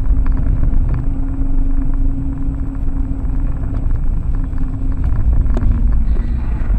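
Car driving over a rutted, snow-covered road, heard from inside the cabin: a steady low rumble of road and engine noise with a faint steady hum, and a few light knocks from the bumps.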